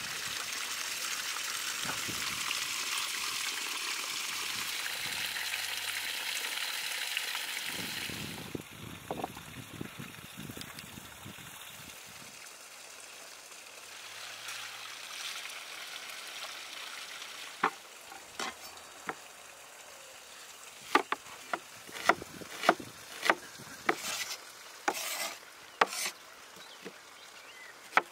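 Spring water pouring from a small stone waterfall over rice held in a bowl, a steady rushing splash that stops after about eight seconds. Later, a large knife chops onion on a wooden cutting board in sharp, irregular knocks.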